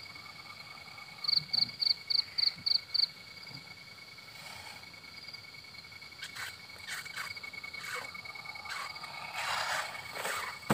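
Crickets chirring steadily in the night, with a run of seven loud, quick chirps about a second in, about four a second. Rustling and shuffling of movement near the end.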